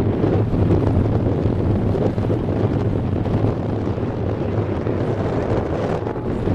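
Wind blowing across the camera microphone: a steady, low rushing noise.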